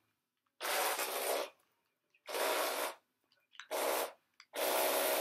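Toy car's small electric motor and gears whirring in four short bursts of under a second to about a second each, stopping fully between them as the throttle is pressed and released.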